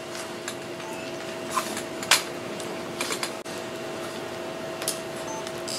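A steady low hum holding two tones over a hiss, broken by a handful of short sharp clicks, the loudest about two seconds in and a quick cluster about a second later.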